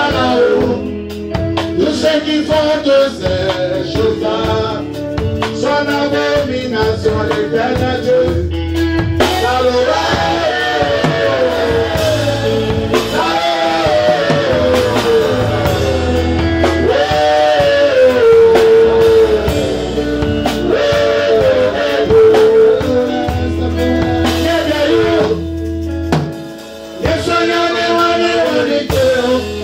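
Gospel praise singing: a man sings through a microphone over loud instrumental accompaniment with a steady bass line. The music dips briefly near the end.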